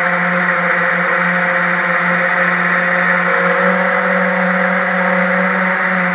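FPV quadcopter's electric motors and propellers running steadily, heard from the onboard camera as a constant buzzing whine with a slight waver in pitch.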